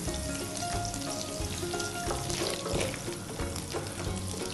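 Cooking oil sizzling and crackling in a hot pan, with background music playing.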